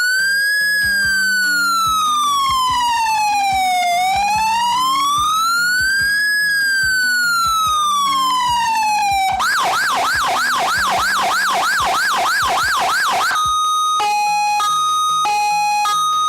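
P200L5 electronic siren box sounding its tones through a speaker. First comes a slow wail that rises and falls about every six seconds. From about nine seconds in it switches to a fast yelp warbling roughly three times a second. Near the end it changes to a two-tone hi-lo, alternating between a higher and a lower note.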